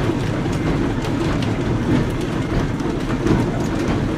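Cabin noise of a 1928–29 Oporto-built, Brill-type vintage streetcar under way: a steady low rumble of the wheels on the rails and the running gear, with scattered light clicks and rattles from the wooden body.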